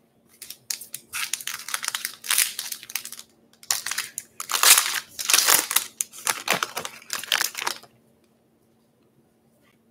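The foil wrapper of a 2019 Topps Pro Debut baseball card pack being torn open and crinkled, a run of crackling rustles that stops about eight seconds in.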